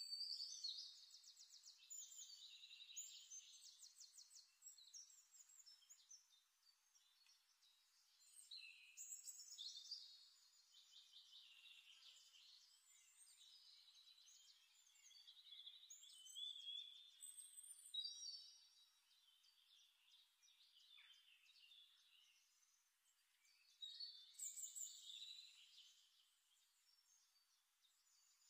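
Faint birdsong: several phrases of quick, high trills and chirps, a few seconds apart.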